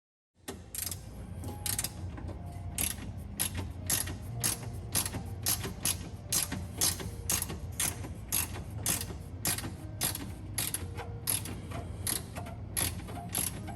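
Hand socket ratchet clicking in a steady run of strokes, about two clicks a second, while loosening an exhaust clamp bolt. It starts suddenly just after the start.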